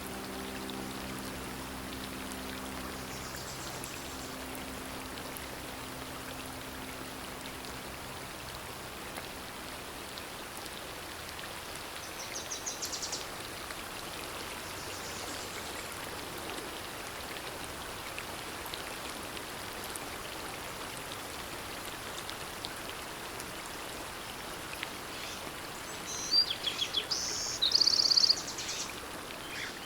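Steady rushing outdoor noise, like surf or wind, with sustained low music notes fading out over the first several seconds. Brief high bird chirps come about twelve seconds in, and louder high bird calls come near the end.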